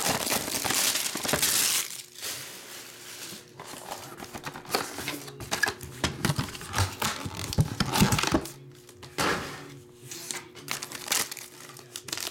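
Plastic wrapping torn and crinkled off a trading-card box, loudest in the first two seconds. Then a black plastic bag holding a graded card slab rustles and crinkles in handling, with scattered taps and clicks.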